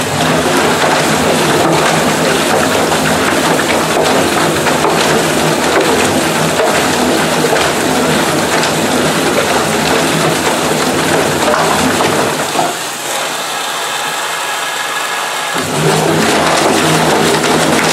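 VELO semi-automatic top-loading washing machine tumbling its load during an intensive pre-wash: the drum motor hums while water sloshes and splashes in the drum. About 13 seconds in, the motor hum stops for about three seconds while the sloshing carries on, then the drum starts turning again.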